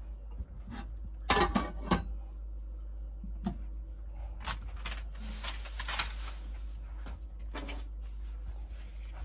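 Kitchen handling sounds of dishes, a pan and utensils: a series of clinks and knocks, the loudest a quick cluster a little over a second in, and a scrape lasting about a second midway, over a low steady hum.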